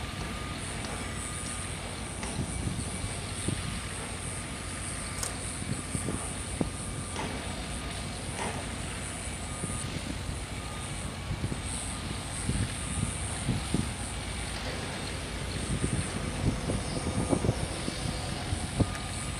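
Construction-site ambience: a steady low rumble of distant heavy machinery with scattered knocks and clanks, more of them in the second half, under a thin high-pitched buzz.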